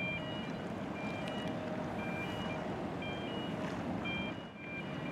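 Vehicle reversing alarms beeping repeatedly, short flat beeps at two alternating pitches, over a steady low rumble. The rumble dips briefly near the end.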